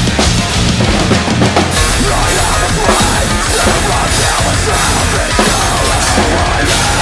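Pearl drum kit with Sabian cymbals played hard to a loud metalcore song, with bass drum and cymbal hits driving the beat.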